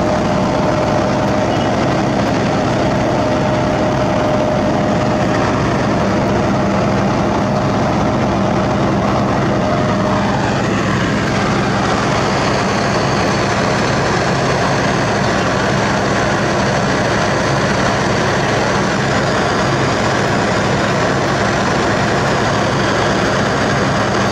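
Sakai ER501F cold milling machine's diesel engine running steadily, heard close up from on top of the machine. A high steady whine falls away in pitch about ten seconds in.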